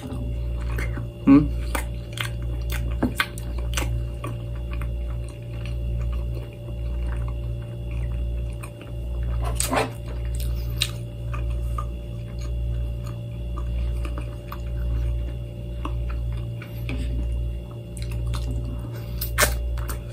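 A man chewing a mouthful of balut and rice, with small wet clicks from his mouth and the food. A louder clack comes about halfway through and again near the end as a plastic food container and bowl are handled. Under it all, low background music with a slow, regular bass pulse.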